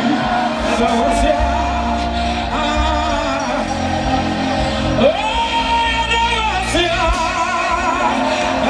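Live gospel worship music: a singer holds long, wavering notes over a live band, with shouts from the crowd.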